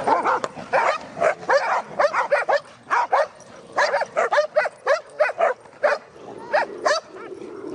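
Dogs barking over and over in quick, high-pitched yaps, about two to four a second, with short gaps between runs.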